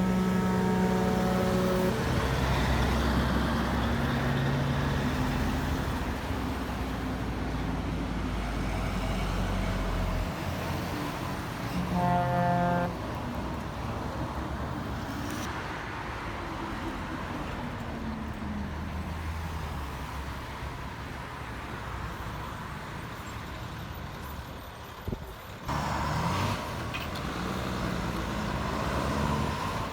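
Heavy traffic passing on a highway, with trucks' engines rumbling and tyre noise. A horn blasts briefly at the start and again, louder, about twelve seconds in.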